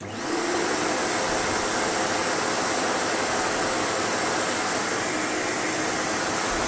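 Sebo Automatic X1 upright vacuum cleaner switching on and running steadily, with a high-pitched motor whine over an even rushing of air.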